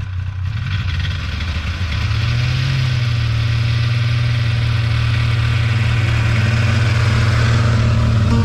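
Snowmobile engine running steadily as it drives up and passes close by, rising a little in pitch about two seconds in and growing louder toward the end.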